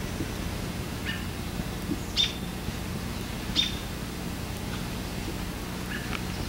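Short, high-pitched animal calls about 1 s in, twice louder around 2 and 3.5 s, and again near the end, over a steady low hum.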